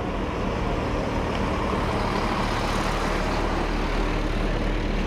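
Heavy diesel dump trucks driving past close by, their engines running steadily. The engine noise swells about halfway through.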